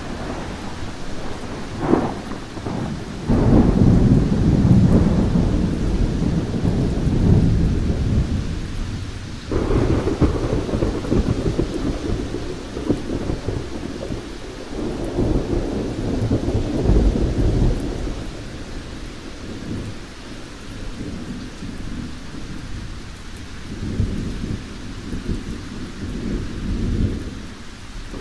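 Thunderstorm: rain falling steadily under long rolls of thunder. The loudest peals swell suddenly about three seconds in and again near ten seconds, with further rumbles later.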